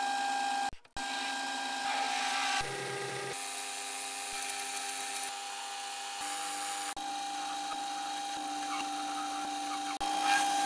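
Metal lathe running while its tools face, centre-drill and turn a metal workpiece: a steady machine whine under the cutting noise, changing abruptly several times.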